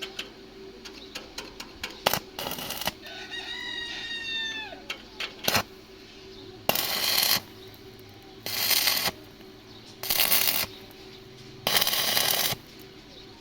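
Five short, evenly spaced bursts of harsh crackling noise, about a second and a half apart and each under a second long, typical of quick tack welds with an electric arc welder. Before them, about three seconds in, a rooster crows once in the background, and a few light clicks come early on.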